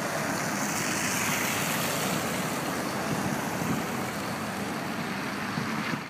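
Steady rushing noise of wind and tyres on a slushy road in moving traffic, with no rhythm or tones.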